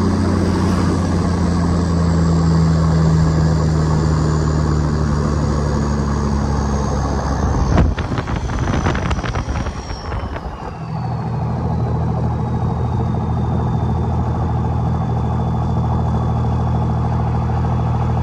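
1959 Chevy Viking truck's engine running while under way, with a faint high whine that slowly falls in pitch. About eight seconds in there are a couple of seconds of rough knocking and rushing noise, then the engine settles to a steady, lower run.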